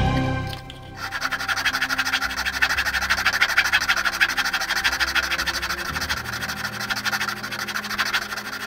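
Needle file rasping along a thin wooden rail of a ship model in rapid, short back-and-forth strokes, starting about a second in.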